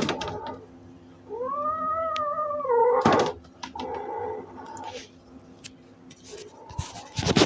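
A cat yowling: one long drawn-out call that rises and falls in pitch, starting about a second in, then a shorter call. Short harsh noisy bursts come right after the long call and again near the end.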